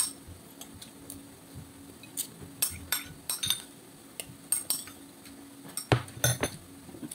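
Metal spoon clinking and scraping against a ceramic bowl as rice is scooped up, in scattered light clinks a few times a second.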